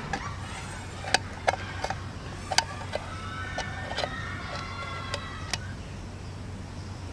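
Lever-type can opener on a multitool working around the lid of a tin can: about ten sharp metal clicks and snaps at uneven intervals as the blade punches and pries through the lid.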